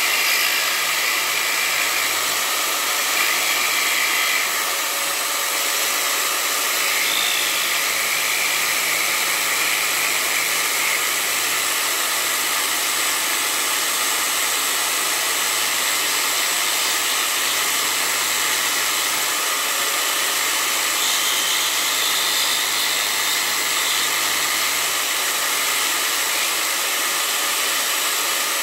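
Cordless drill running steadily with a small rotary carving burr in its chuck, the burr grinding into the wood of a hiking stick: a steady motor whine over a continuous hiss of cutting.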